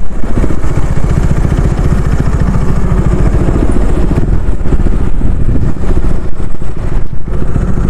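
KTM Duke 250's single-cylinder engine running steadily while riding, heard close up from the rider's helmet mic with wind rush.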